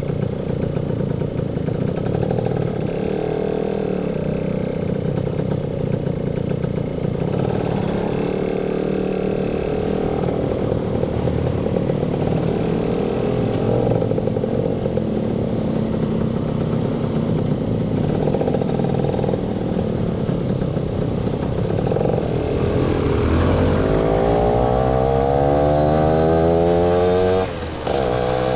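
Motorcycle engine running while riding, its pitch rising and falling with the throttle. Near the end it revs up in a long rising glide, then drops off abruptly for a moment before picking up again.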